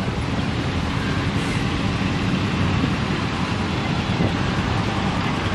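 Steady street traffic noise with wind rumbling on the microphone.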